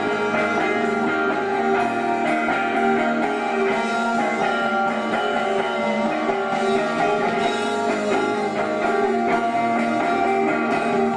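A live rock band playing, with guitar over a drum kit.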